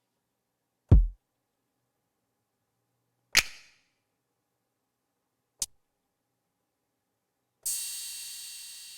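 Single drum-kit samples from an Akai MPC plugin, triggered one pad at a time with gaps between: a low kick-like thump about a second in, a sharper snare-like hit, a very short click, then a ringing crash near the end that decays slowly.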